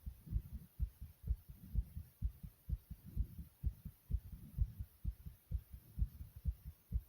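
A person's heartbeat, pounding hard: fast, regular low thumps, about two beats a second.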